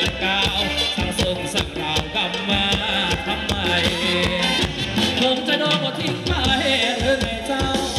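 Live band playing upbeat Thai ramwong dance music with a steady beat. The bass drops out for about a second past the middle, then comes back.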